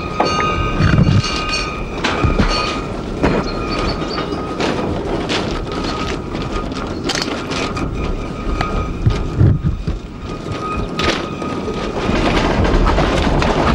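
Loose-coupled goods wagons rolling slowly along the track, their wheels and couplings giving irregular clanks and knocks over a steady rumble. A thin, high brake squeal comes and goes as the wagon brakes are pressed on with a brake stick.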